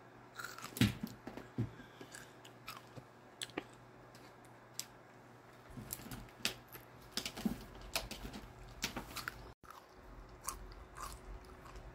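Close-up chewing and biting of pomegranate arils: irregular wet crunches, the loudest about a second in.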